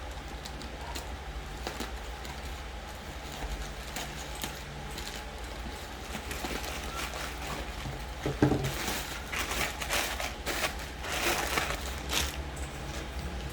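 Book packaging being handled and unwrapped: scattered small clicks and crinkles, then a thump about eight seconds in and louder rustling for a few seconds, over a low steady hum.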